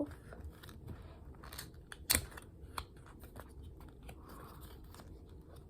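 Faint handling of a miniature Uno game's packaging and cards: scattered small clicks and light rustles, with one sharp click about two seconds in.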